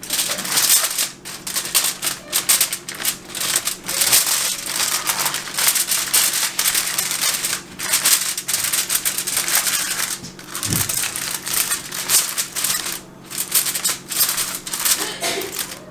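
Aluminum foil crinkling and crackling as hands press and crimp it down over the rim of a disposable aluminum baking pan, a dense run of irregular crackles with a few brief pauses.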